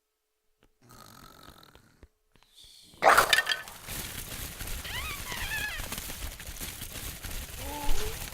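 Home-made sound effects for a battle scene: a sudden loud burst about three seconds in, then a steady rough noise with a few brief wavering high cries, and a groaning voice near the end.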